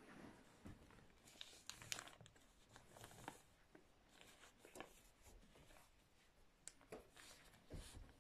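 Faint rustling and crinkling of a sheet of paper being folded and creased by hand, in short scattered bursts.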